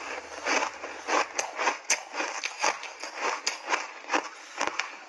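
Close-up chewing of a mouthful of frozen block ice coated in milk powder, in quick irregular crunches, several a second.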